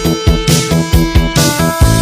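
Background music with a fast, steady drum beat under held synth notes.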